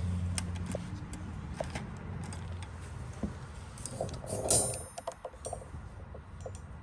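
Close handling noise: scattered light clicks and rattles, with a louder crinkling rustle about four and a half seconds in. A low hum underneath fades out midway.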